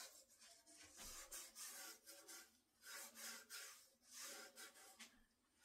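Faint rubbing swishes of a gloved hand smearing wet black acrylic paint along the edge and sides of a round wood panel, several strokes about a second apart.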